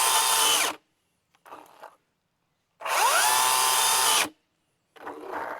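Milwaukee M18 top-handle cordless chainsaw's electric motor running and cutting off abruptly less than a second in, then spinning up again with a rising whine, running about a second and a half and stopping abruptly. The saw keeps stalling in the cut through white ash hardwood at full trigger, a fault the owner wonders may lie in the battery.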